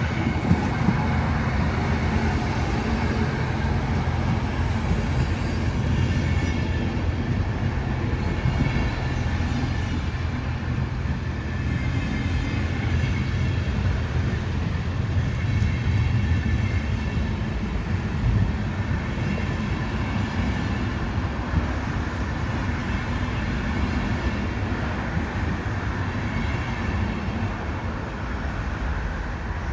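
Passenger train of intercity coaches hauled by a DSB Siemens Vectron electric locomotive passing close by. The wheels and bogies make a steady, loud rolling rumble on the rails as the coaches go past.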